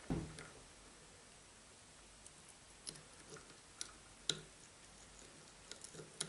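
Faint, scattered small metal clicks and ticks as parts of a Babetta moped's engine sprocket and drive coupling are handled. Single clicks come at irregular gaps, the sharpest about four seconds in, with a quick run of them near the end.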